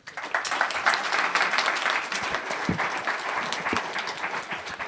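Audience applauding after a talk, a dense patter of many hands clapping that starts at once and eases off slightly toward the end.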